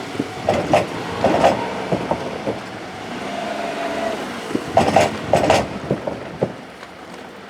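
Kintetsu 22000-series and 22600-series electric limited express train passing, its wheels clacking over rail joints in quick groups as each bogie goes by, with a brief steady whine in the middle. The clacks stop and the rumble fades near the end as the last car passes.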